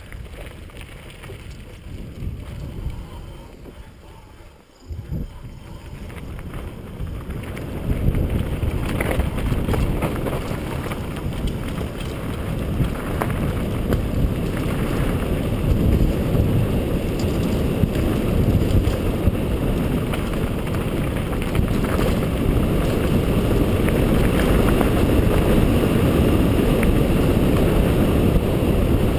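Wind rushing over the camera microphone and a mountain bike's tyres and frame rattling over a rocky dirt trail. It gets much louder about eight seconds in as the bike picks up speed, with scattered sharp knocks from bumps.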